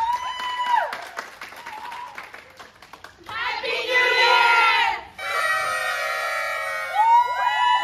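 Party horns blown by a group: one short toot at the start and scattered claps. A burst of many voices calling out together comes around the middle, then several horns blow at once for about two seconds, with another starting up near the end.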